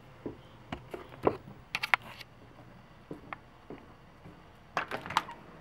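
Handling noise from a handheld camera being carried: irregular short clicks and knocks, bunched about two seconds in and again near the end.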